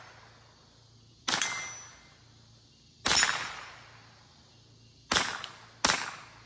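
Ruger 10/22 semi-automatic rifle firing .22 Long Rifle rounds singly: four sharp shots, the first three about two seconds apart and the last following under a second later, each trailing off in a short echo.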